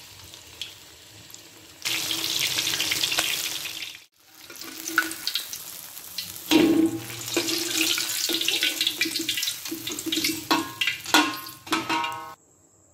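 Flour-coated black pomfret sizzling as it fries in hot oil in a wok, with a short break about four seconds in. A metal spatula clicks and scrapes against the wok now and then.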